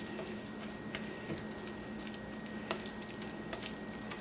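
Spatula faintly squishing and scraping soft scrambled eggs around a nonstick skillet, with a few light taps, over a steady low hum.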